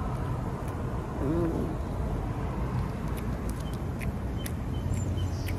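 Close-up chewing of a fast-food sandwich, with faint wet mouth clicks, over a steady low rumble of road traffic. A short rising-then-falling tone comes about a second in.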